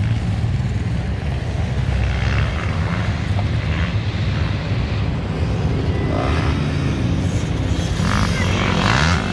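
Motocross dirt bike engines running on the track, with the revs rising about six seconds in and again near the end.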